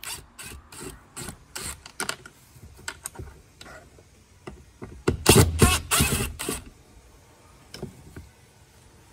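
DeWalt 20V MAX XR brushless cordless drill run in short trigger bursts, backing out Phillips screws from a door panel's handle recess. The loudest run lasts about a second and a half a little past the middle, and a few light clicks of the bit and screw follow near the end.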